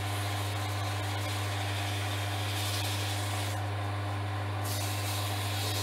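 Axminster Craft wood lathe's motor humming steadily while fine-grit sandpaper hisses softly against spinning olivewood pen blanks. The sanding hiss stops for about a second roughly three and a half seconds in, then resumes. A soft sanding noise at this grit is the sign of a surface nearing a smooth finish.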